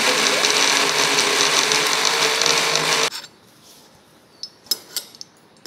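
Electric mixer grinder (mixie) running steadily, grinding grated coconut, cashews and poppy seeds with a little water into a paste. It cuts off abruptly about three seconds in, followed by a few faint taps of a spoon in a steel kadhai.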